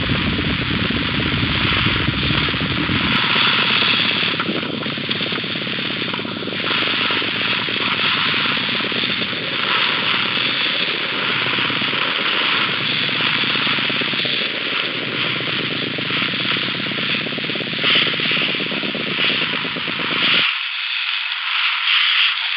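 Steady, loud noisy hiss in two layers, with a deep rumble underneath that drops out about three seconds in; the lower layer cuts off abruptly about twenty seconds in, leaving only the higher hiss.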